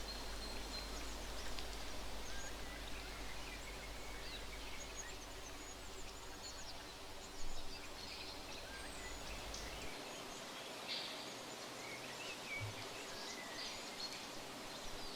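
Outdoor nature ambience: many short bird chirps and calls over a steady background hiss, with a brief louder sound about halfway through.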